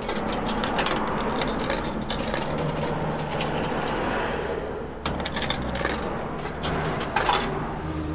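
Coins clinking as they are fed one after another into a vending machine's coin slot, a string of short metallic clicks. A low steady hum joins about five seconds in.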